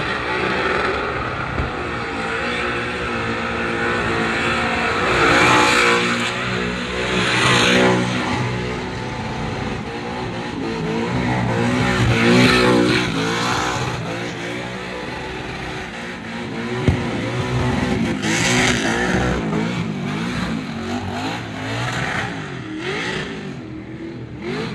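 Burnout car's engine revving hard and held high under full throttle, its pitch rising and falling as the driver works the throttle, over the hiss of spinning rear tyres, with loud surges several times. A single sharp bang about two-thirds of the way through.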